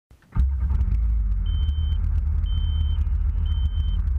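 Jet ski engine running with a steady low rumble, picked up by a camera mounted on the craft. Three short, high, steady beeps come about a second apart in the middle.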